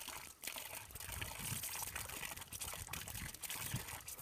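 Water pouring and trickling steadily, splashing over soapy hands as they are rinsed.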